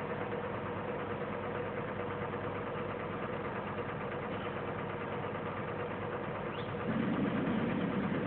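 Crane engine running steadily while holding a suspended load, growing a little louder near the end as it works harder.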